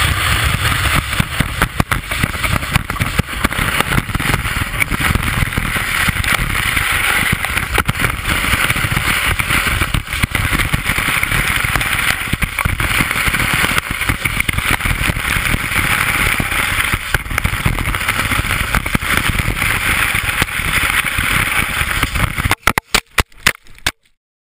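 Telemark ski running fast over snow, heard from a camera mounted on the ski: a steady rushing, chattering scrape with heavy wind on the microphone. About two seconds before the end, a quick series of sharp knocks as the camera mount pops off the ski and the camera tumbles into the snow.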